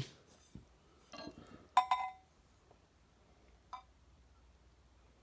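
A few light metallic clinks of steel parts inside the John Deere 310D reverser's forward clutch drum as the snap ring is fitted; the loudest, about two seconds in, rings briefly.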